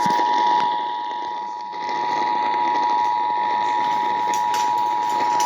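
Emergency Alert System attention signal: the two-tone alarm (853 and 960 Hz together) held as one steady, unbroken tone, heard over broadcast radio with a hiss underneath. It marks the start of a live EAS activation, here for a severe thunderstorm warning.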